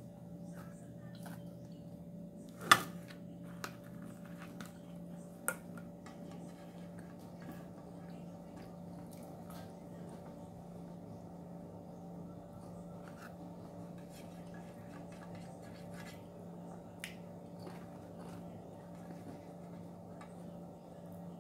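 Quiet eating sounds as french fries are dipped in sauce and chewed, with a few sharp clicks, the loudest about three seconds in. A steady low hum lies underneath.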